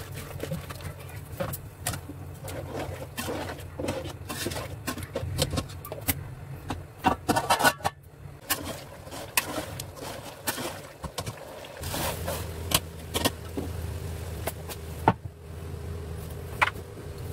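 Kitchen handling at a pot of boiling pulao stock: soaked rice tipped in from a plastic bowl, then repeated clinks and knocks of metal as a flat aluminium lid is set on the aluminium pot. A steady low hum runs underneath.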